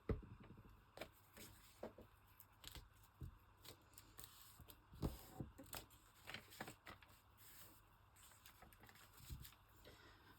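Paper and small craft tools handled on a desk: scattered soft taps, clicks and light rustles, the loudest a tap at the very start.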